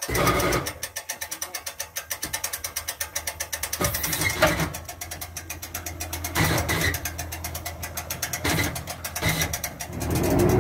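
Boat trailer winch ratchet clicking rapidly and evenly as the strap pays out while a boat is shoved back off the trailer. A few louder knocks and scrapes from the hull on the trailer come in from about four seconds on.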